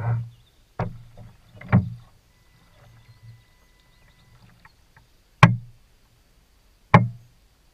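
A carp bait boat's hull and bait hopper knocking while the hopper releases its load, five sharp knocks each with a short low ring, three in the first two seconds and two more spaced out near the end. A faint steady whine runs for about two seconds in the middle.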